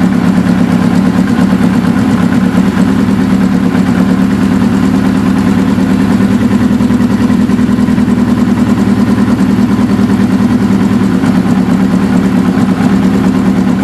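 Suzuki GS550 air-cooled inline-four idling steadily while its idle mixture is tuned. The cylinder under test is running rich, which the owner reads from a way-too-yellow Colortune flame.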